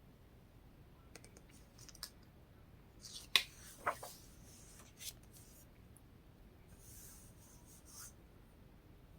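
Quiet room tone with a few faint clicks and soft rustles; the loudest are two sharp clicks about three and a half and four seconds in.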